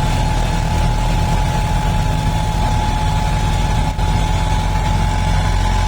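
Tractor diesel engine running steadily: a loud low rumble with a thin, steady high whine over it.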